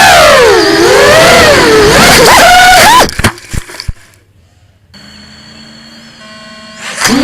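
Racing quadcopter's four brushless motors (2205 2300KV) whining loudly, the pitch rising and falling with the throttle. About three seconds in they cut out abruptly with a few knocks, leaving a faint steady hum, then spin back up near the end.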